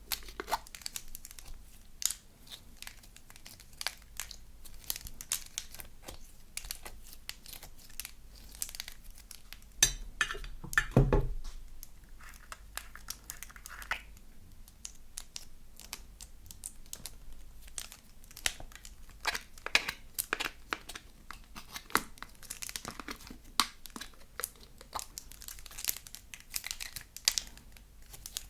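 Slime being squeezed, stretched and mixed by hand, giving a dense run of small crackling pops and clicks, with one louder burst about ten seconds in.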